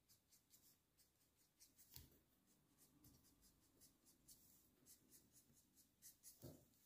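Faint, quick strokes of a Copic alcohol marker nib on paper, blending colour in short repeated scratches. A couple of soft thumps come about two seconds in and near the end.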